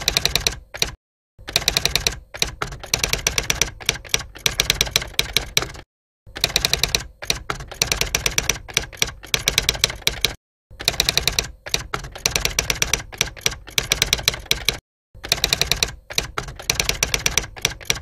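Typewriter keys clattering in fast runs of about four seconds each, with short complete silences between them.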